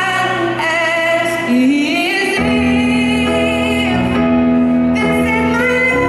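Live concert music with singing: held sung notes over sustained band or keyboard accompaniment.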